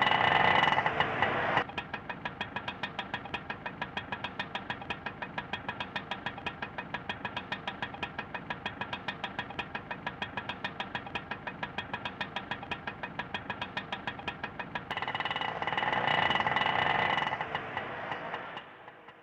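Indian auto rickshaw's small engine. It runs loudly at first, then idles with an even putt-putt of about five beats a second, then grows loud again about fifteen seconds in before fading out near the end.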